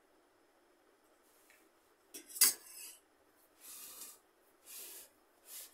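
A metal spoon clinks sharply against steel tableware once, about two and a half seconds in, followed by three short scraping sounds of rice being worked by hand on a steel plate.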